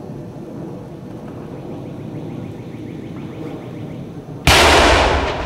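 A low steady rumble, then about four and a half seconds in one sudden, very loud blast of the charge that launches a 55-gallon steel drum, dying away over about a second.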